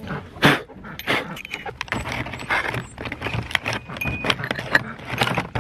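Handling noise from metal tool parts and packaging: a hole saw and its drill bit clinking together and a stiff plastic clamshell package crinkling, a dense run of small clicks and rustles.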